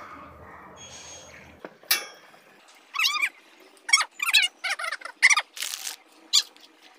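A series of short, high-pitched squeaks that bend up and down in pitch, about eight of them starting some three seconds in, with a brief hiss between the last few.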